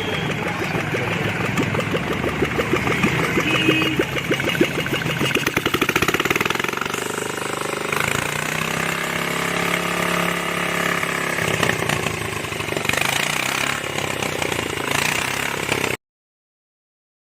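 1942 BSA WM20 motorcycle's single-cylinder side-valve engine running, its revs rising and falling once through the middle. The sound cuts off suddenly near the end.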